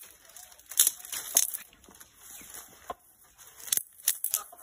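Dry brushwood sticks rustling and crackling as they are gathered and pulled into bundles by hand, with irregular sharp snaps and clicks.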